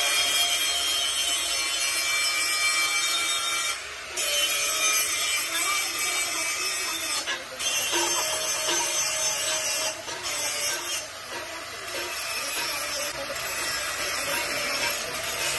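Aerosol spray-paint can hissing as it sprays paint in long steady runs, broken by short pauses every few seconds where the nozzle is released.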